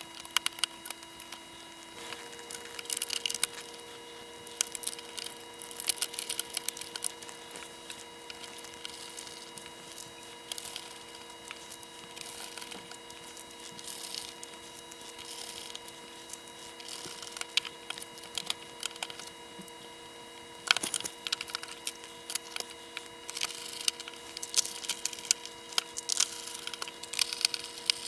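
Clicks, taps and small rattles from a handheld oscilloscope's plastic case and circuit board being handled and screwed back together with a screwdriver, in irregular clusters, with one sharper click about 21 seconds in.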